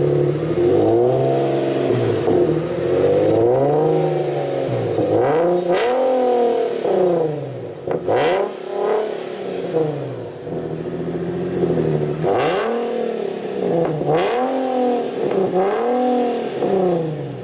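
Nissan 370Z's 3.7-litre V6 revved repeatedly through a full Tomei aftermarket exhaust, the pitch climbing and falling back about eight times. The rest of the car is stock.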